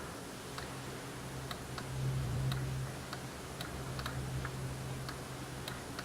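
Slow, scattered clicks of computer keys, about two a second, over a low steady hum.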